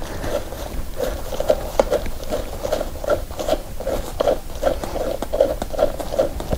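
Bolts being turned by hand with a hex Allen key in a gaming chair's backrest T-bar mount: a steady run of short creaks and clicks, about three a second.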